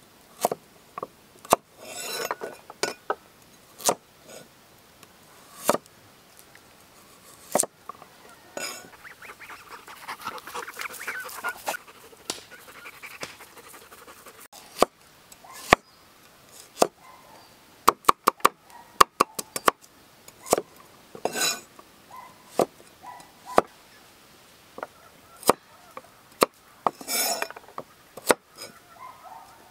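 A cleaver chopping a carrot on a wooden stump chopping block: single sharp knocks at irregular intervals, with a quick run of dicing strikes about two-thirds of the way through. Domestic geese call now and then in between.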